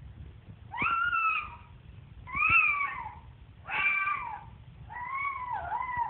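Moluccan cockatoo giving four drawn-out calls about a second and a half apart, each rising then falling in pitch; the last one has a dip in the middle.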